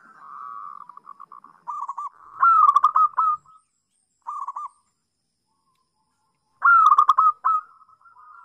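Zebra dove (perkutut) cooing: phrases of quick staccato coos. A softer rolling trill opens, loud phrases come about two and a half seconds in and again near the end, and there is a short phrase between them followed by a quiet gap of about two seconds.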